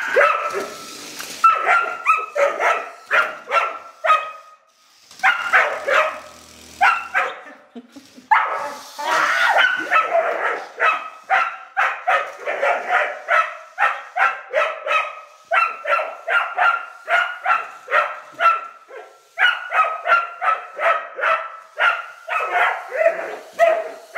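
Rough collie barking at a radio-controlled toy car. The barks come in quick runs of two or three a second, broken by a couple of short pauses in the first third.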